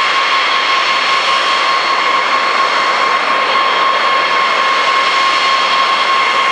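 Boeing B-52 Stratofortress taxiing on its eight military JT3-family jet engines: a loud, steady jet whine with a strong high tone over an even rush of noise.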